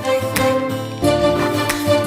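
Background music: a melodic instrumental with sustained pitched notes and a regular beat.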